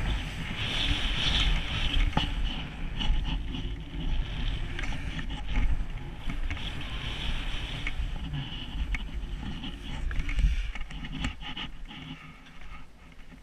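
Skis sliding and turning through sun-softened off-piste snow: a steady hiss and scraping with a low wind rumble on the helmet camera's microphone. It fades near the end as the skier slows.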